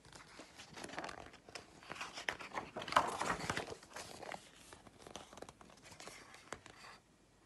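Pages of a picture book being turned and handled: irregular paper rustling and crinkling, loudest about three seconds in.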